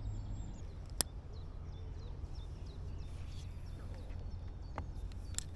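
Outdoor ambience at a pond: a steady low rumble with faint small-bird chirps. A single sharp click about a second in and a few lighter clicks near the end.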